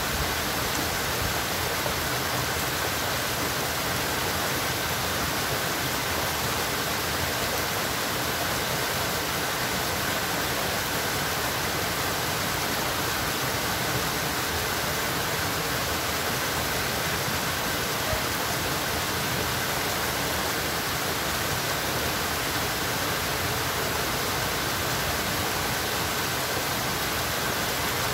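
Steady rush of flowing water, an even hiss that never changes.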